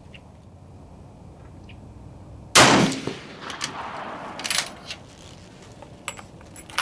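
A single rifle shot from a Gruning Precision rifle about two and a half seconds in, with a short echo trailing off, followed by several smaller sharp metallic clicks and clanks.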